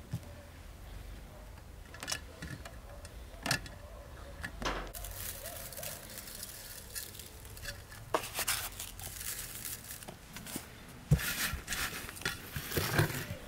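Salt sprinkled by hand from a cardboard box onto strips of raw meat on a plate, heard as several spells of dry hissing. In between come small clicks and knocks as hands handle the meat against the plate.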